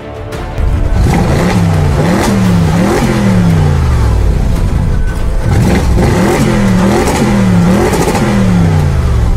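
Ford Mustang Shelby GT350's 5.2-litre flat-plane-crank V8 being revved: three quick rises in engine pitch about a second in, then after a short drop another three about halfway through. Each rev climbs fast and falls back more slowly. Background music plays faintly underneath.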